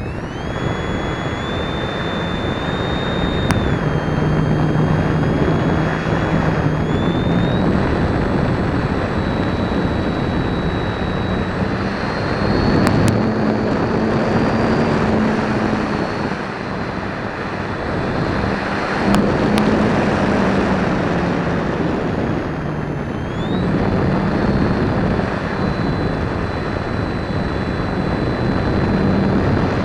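Electric motor and propeller of an RC motor glider heard from an onboard camera, a steady whine that shifts in pitch several times as the throttle changes, over loud wind rush from the airflow.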